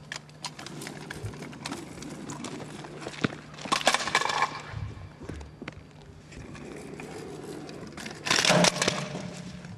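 Kick scooter's small wheels rolling and rattling on asphalt, with scattered clicks and knocks and two louder scraping clatters, about four seconds in and again near the end.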